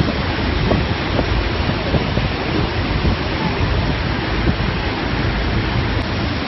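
Steady rushing roar of Niagara Falls' cascading water and spray, with wind buffeting the microphone.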